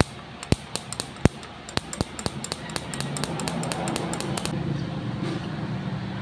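Ignition sparks snapping from a motorcycle coil's high-tension lead to a grounded metal bracket in a CDI spark test: a run of sharp clicks, about four a second, stopping about four and a half seconds in. A low hum comes up behind them around halfway.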